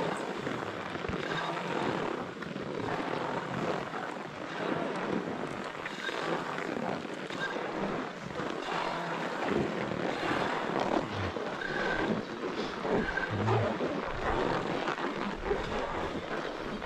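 Skis sliding and carving over snow during a downhill run, a continuous uneven rush of noise with wind on the microphone.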